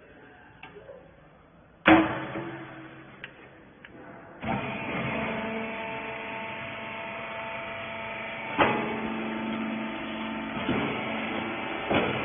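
A loud bang about two seconds in, then a few seconds later the rag baler's hydraulic power unit starts and runs with a steady hum, with two more knocks over it.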